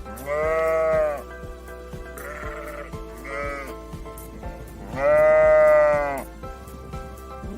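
Sheep bleating: two loud calls of about a second each, one near the start and one about five seconds in, with shorter, quieter bleats between them, over background music with a steady beat.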